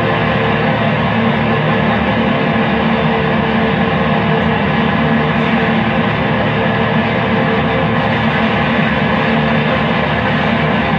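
Noise music from a guitar effects pedal chain: a dense, unchanging wall of distorted drone, with several held tones under a thick hiss.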